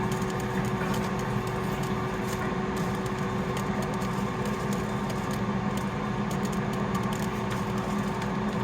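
Air fryer running with a steady fan hum and a constant low tone.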